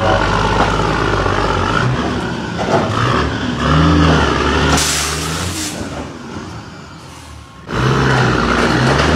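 Semi-truck's diesel engine revving up and down as the rig maneuvers, with a brief hiss about five seconds in. The engine fades, then comes back abruptly near the end.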